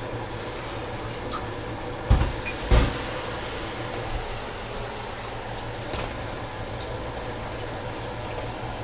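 A kitchen appliance runs with a steady hum. Two dull knocks come about two and three seconds in.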